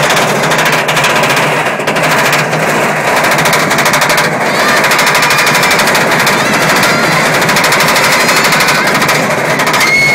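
Roller coaster train rattling along its track: a loud, very rapid, steady clatter.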